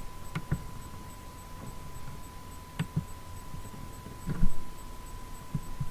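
A steady thin electrical whine with a few scattered computer mouse clicks and low knocks, two close together about three seconds in and a louder one near four and a half seconds.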